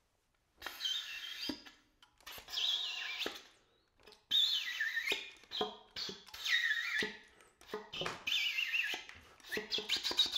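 Oboe playing short phrases of high, wavering tones, broken by brief pauses, starting about half a second in.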